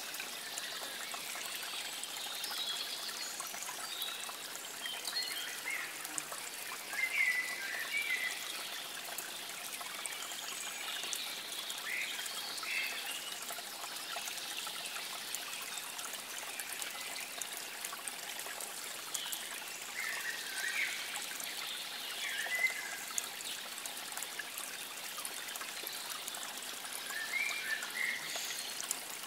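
Running water trickling steadily, as of a small stream, with short bird chirps every few seconds.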